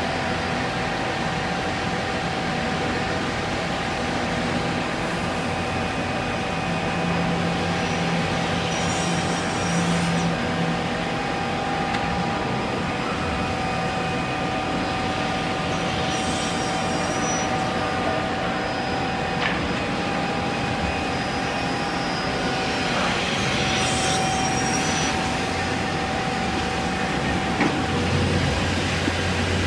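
Holztek Tectra 328 CNC panel saw running: a steady machine drone with a whine, broken by three hissy swells about seven seconds apart, each lasting a couple of seconds, as the saw runs through the stacked panels. A deeper hum comes in near the end.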